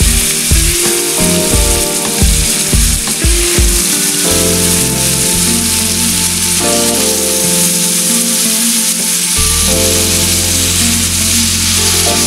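Marinated chicken pieces sizzling as they fry in hot oil and butter in a pan, a steady loud crackling hiss, with background music playing underneath.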